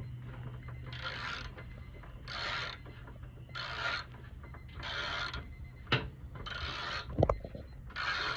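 Plastic zip tie being ratcheted tight: a rasping zip repeated about six times at an even pace, with two sharp clicks near the end. A steady low hum runs underneath.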